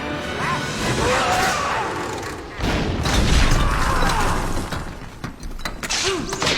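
Film sound effects of a house blowing up: a deep boom about two and a half seconds in, followed by crashing and crackling debris.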